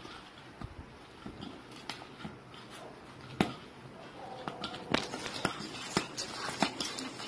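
Hand squeezing and mixing a mashed boiled potato and spice mixture in a stainless steel bowl: soft squelching with scattered clicks and taps against the bowl, more frequent in the second half, and one sharp click about three and a half seconds in.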